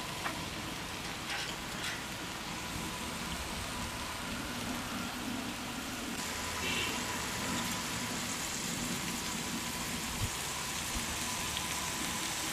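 A mutton leg sizzling steadily on a hot stone griddle as oil is spooned over it. A few light clinks of a spoon against a steel bowl come in the first two seconds.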